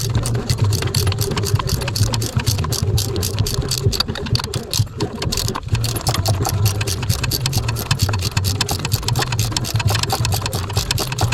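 A machine running steadily, with a low hum and a rapid, even clicking.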